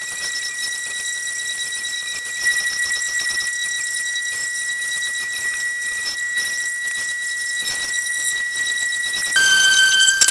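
Electric power sander running with a steady high whine over a rough sanding hiss; about nine seconds in, the whine drops in pitch and the sound gets louder.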